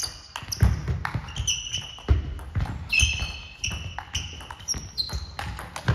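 Table tennis rally: a plastic ball clicking sharply off the rackets and the table about every half second, with short high squeaks of shoes on the sports hall floor.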